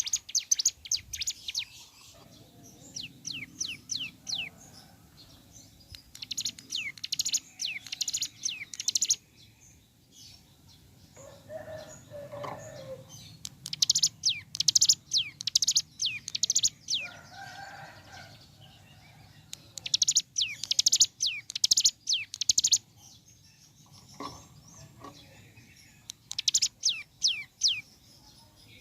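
Ciblek gunung (hill prinia) singing in bursts of rapid, high, downward-sweeping notes. Each burst lasts a second or three, and they come about six times with pauses between. Softer, lower-pitched calls come twice in the pauses.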